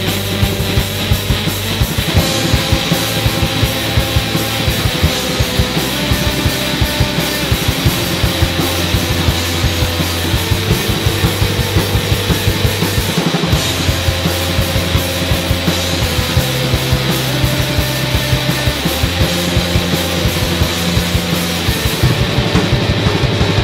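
Rock music with electric guitar and a driving drum kit, a steady heavy beat and bass notes that change every second or two.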